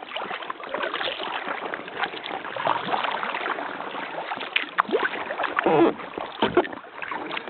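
Paddle strokes splashing in river water while paddling a Gumotex Twist 2 inflatable kayak, with a run of sharper splashes about halfway through.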